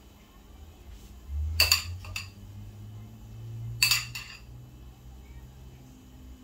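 A metal fork clinking against a bowl of beaten egg while egg wash is dabbed on with it: two sharp ringing clinks, about a second and a half and about four seconds in, with a lighter tap between them. A low steady hum runs underneath.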